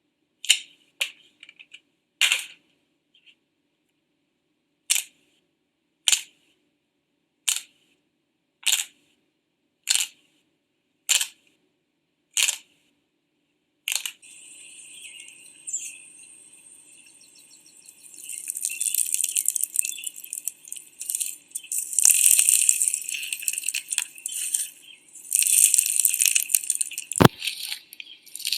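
Slime being poked, with a run of short sharp pops about once a second, then from about halfway a dense crackling that grows louder as the slime is pressed and squished.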